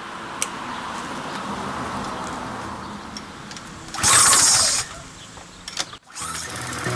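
One pull on the recoil starter of a Briggs & Stratton pressure-washer engine, a loud pull lasting under a second about four seconds in, as a start is tried on its newly fitted carburetor. Music comes in suddenly near the end.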